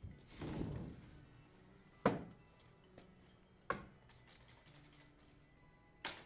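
A swell of noise in the first second, then three sharp knocks at uneven gaps of one and a half to two and a half seconds, the first the loudest, over a faint low hum.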